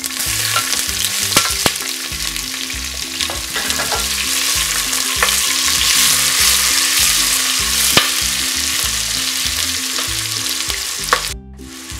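Sliced red onions sizzling in hot oil in a stainless steel pressure cooker, stirred with a wooden spatula that clicks and scrapes against the pot now and then; the onions are at the start of being sautéed. The sizzle cuts off abruptly near the end.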